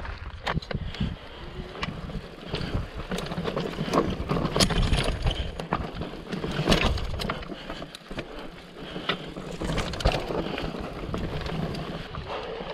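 Electric mountain bike riding over rough, rocky ground, with frequent sharp knocks and rattles from the bike and a steady low rumble of wind on the camera's microphone.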